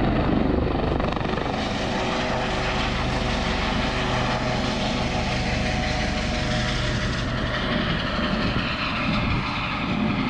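Care Flight air ambulance helicopter running steadily as it departs, a continuous rotor and engine sound.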